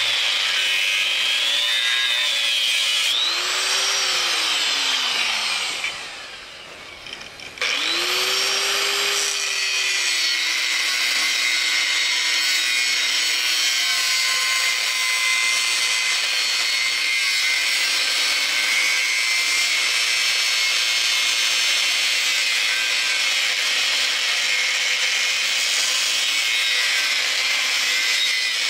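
Angle grinder with an abrasive disc cutting through and grinding steel rectangular tubing: a steady high whine and hiss of the disc on metal. About four seconds in the motor's pitch falls as it is switched off and winds down to a short lull. It restarts with a rising whine about a second and a half later and then runs steadily.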